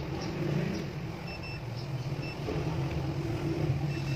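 Short, broken beeps from a Sanwa digital multimeter's continuity beeper as its probes touch the alternator's terminals. A beep marks continuity between the probed points. A steady low rumble runs underneath and is the loudest sound.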